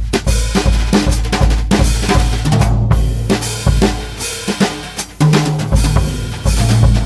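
Pearl Midtown compact drum kit (16-inch bass drum, 13-inch snare) played with Regal Tip Yellow Jacket brushes: a steady bass drum beat under brush strokes on snare, toms and cymbals. The bass drum drops out for a moment a little after four seconds in while a tom rings, then the groove comes back in. Recorded without EQ.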